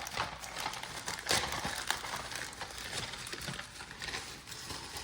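Packaging crinkling and rustling as it is handled and opened by hand, in an irregular run of crackles with a sharper crackle about a second in.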